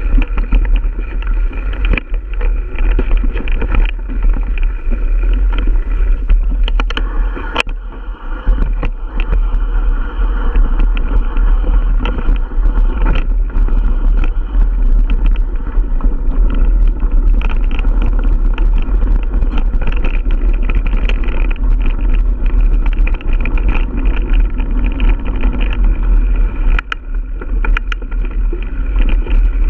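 Continuous wind and vibration rumble on a bike-mounted camera's microphone as a Giant Stance 1 mountain bike rolls along a dirt forest trail. Scattered sharp clicks and knocks come from the bike over bumps.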